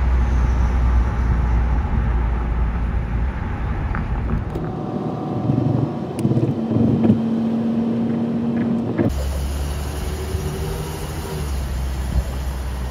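Car travelling in road traffic: steady road and engine noise with a strong low rumble, changing abruptly about four and a half and nine seconds in, with a steady tone during the middle stretch.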